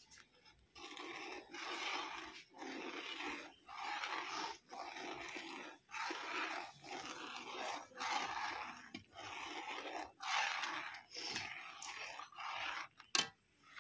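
Long flat metal spatula scraping across the bottom of a large iron kadhai of boiling milk in regular strokes, about one a second, as the milk is stirred down to mawa (khoya). Near the end there are a couple of sharp knocks, metal on the pan.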